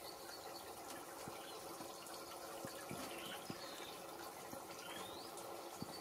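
Faint outdoor ambience: a steady low hiss with scattered light clicks, and a short rising chirp near the end.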